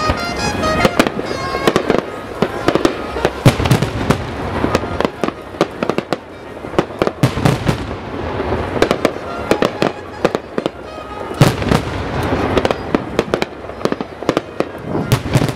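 Aerial fireworks shells bursting in rapid volleys, many sharp bangs and crackles one after another, with music playing along with the show.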